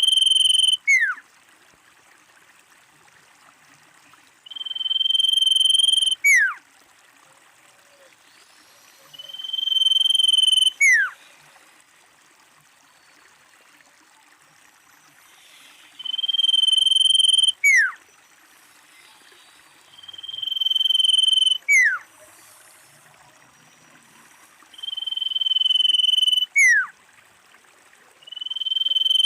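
Common iora calling over and over: each call is a long, steady, high whistle that ends in a quick sharply falling note. It repeats about every four to five seconds, with a longer pause near the middle.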